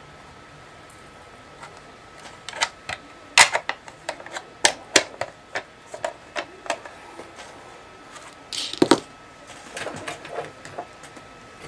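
Hard plastic craft tools and a wax melting pot being handled and set down on a tabletop: irregular clicks and light knocks starting about two seconds in, with a brief scrape about nine seconds in.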